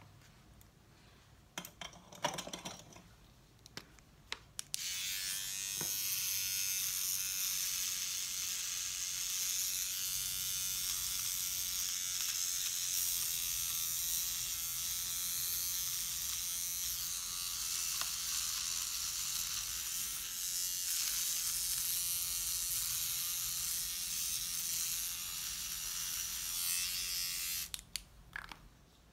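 Small battery-powered pen-style eyebrow trimmer buzzing steadily against the brow. It switches on about five seconds in and cuts off near the end, with a few handling clicks before it starts.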